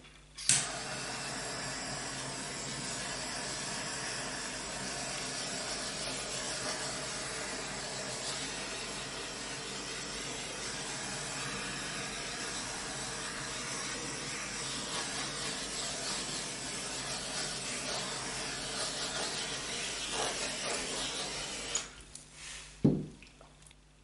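Handheld gas torch clicking alight, then its flame hissing steadily while it is passed over wet acrylic paint, cutting off near the end, followed by a single knock.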